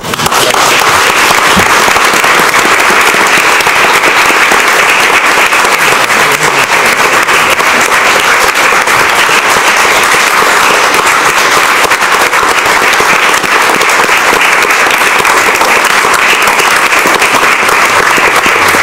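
A large audience applauding loudly and steadily, starting suddenly and holding without a break.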